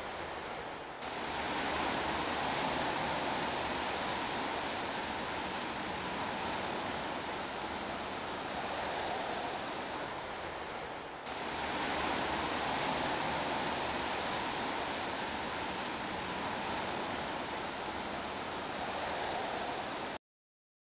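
Steady rushing noise like surf or running water, jumping suddenly louder about a second in and again about eleven seconds in, then cutting off abruptly near the end.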